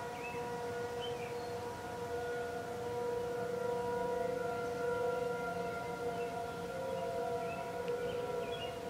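Outdoor tornado warning sirens sounding a steady, level tone during a scheduled siren test. Around the middle a second siren's tone drifts in just above the first.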